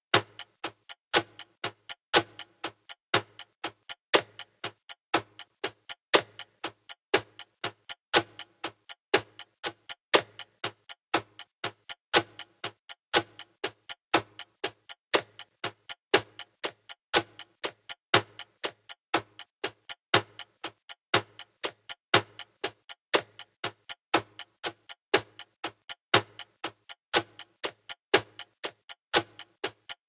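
Clock ticking sound effect: a quick, even run of sharp ticks, with a louder tick once a second.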